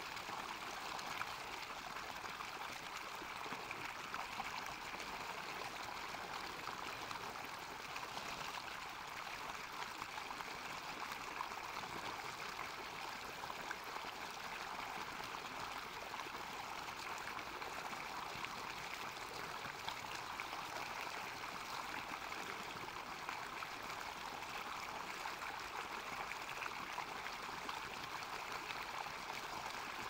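Small stream spilling over a fallen log into a frothy pool below: a steady, even rush and splash of running water.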